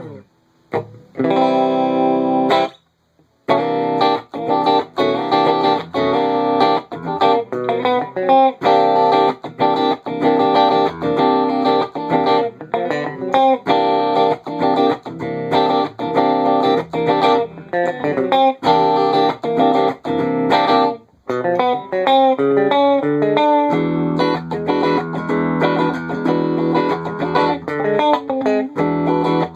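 Electric guitar with Tesla pickups, both pickups selected, played through a Wangs VT-50 amplifier dialled for a warm tone at half gain. A chord rings briefly at the start, then after a short break comes a steady run of picked notes and chords, moving to lower, more sustained notes in the last few seconds.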